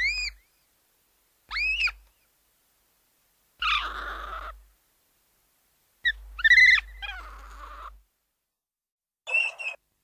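Fairy Mothra's film creature cries: five separate high, bird-like chirping calls with silence between them, several bending up and then down in pitch. The call about six seconds in is the longest and loudest.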